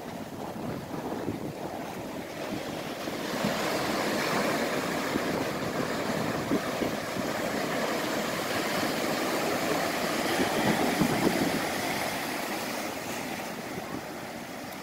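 Ocean surf: waves breaking and foaming whitewater washing in against a rock breakwater, a steady rushing that swells about three seconds in and eases near the end.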